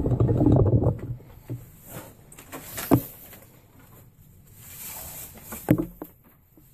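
Rustling and swishing of a bundle of loose rope strands being handled and worked into a braided rein handle, loudest in the first second. Two sharp knocks come about three seconds in and again near the end.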